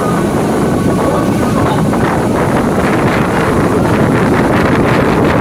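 EMU local train running, heard from on board: a steady rumble with wind buffeting the microphone, growing brighter and a little louder about two seconds in.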